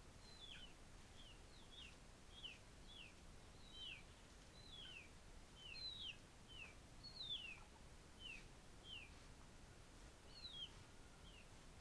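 Faint bird chirping: short calls that each drop in pitch, repeated every half second or so, some coming in quick pairs, over a low background hiss.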